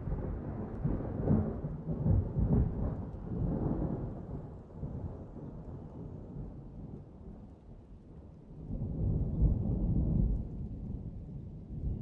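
A low rumble with no clear pitch, swelling and fading several times, loudest between about nine and ten and a half seconds in.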